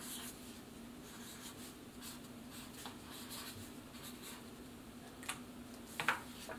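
A marker being drawn across paper to write a word: faint, short scratching strokes. About six seconds in come a couple of sharper, louder sounds as the sheet is handled.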